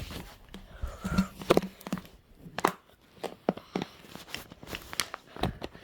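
Plastic water bottle and drip-waterer parts being handled, giving an irregular run of light clicks and knocks.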